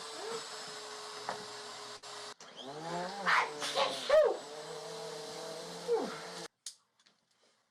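A steady motor-like hum with a level whine, with loud gliding pitched sounds over it in the middle. The hum cuts off suddenly about six and a half seconds in, leaving near silence.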